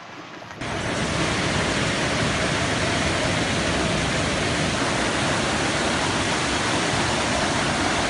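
Floodwater rushing across and over a submerged bridge: a loud, steady, even roar that starts abruptly about half a second in.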